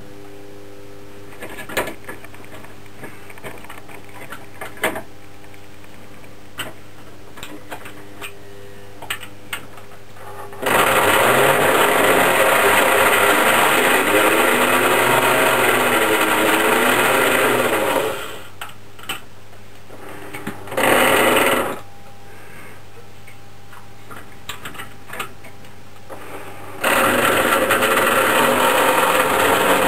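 Lionel Burro crane's small electric motor and gearing whirring in three bursts: a long run of about seven seconds, a brief one, and another starting near the end. Light clicks and taps from its hand-worked controls come in between.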